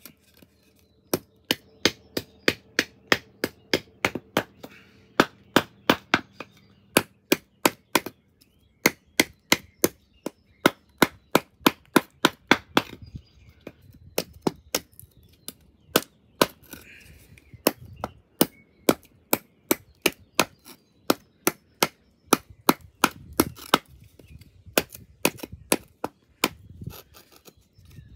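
Kitchen knife being driven into a piece of hard wood: rapid sharp knocks, about three a second, in runs broken by short pauses.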